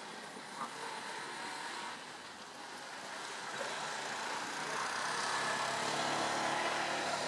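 A passing motor vehicle, its engine and road noise growing louder over the second half.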